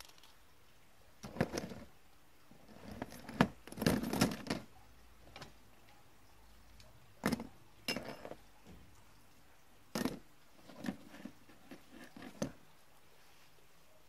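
Plastic-bodied multi-pin industrial connectors being handled: irregular clicks and clatters in several short clusters as they are picked up, knocked against one another and set back down on cardboard.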